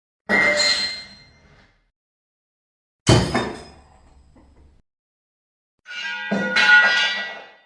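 Metal objects dropped on a hard floor, three separate times: a clank with ringing about a third of a second in, a sharp clang about three seconds in, and a longer clattering pile-up of pieces near the end.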